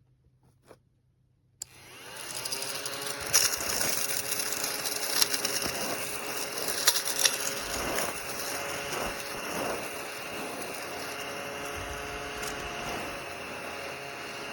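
Small battery-powered mini vacuum cleaner switched on about a second and a half in, its motor pitch rising as it spins up and then running steadily, with scattered sharp clicks over it.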